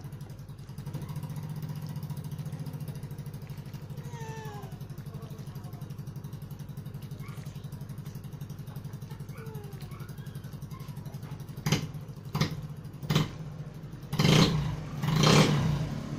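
A motor running steadily with a low, evenly pulsing hum. Three sharp knocks come about twelve seconds in, and two louder half-second bursts of noise near the end.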